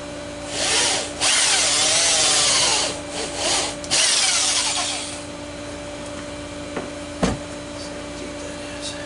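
Electric drill boring dowel holes into wood in several short runs, its pitch sliding as the speed changes. Then a single knock. A faint steady hum runs underneath.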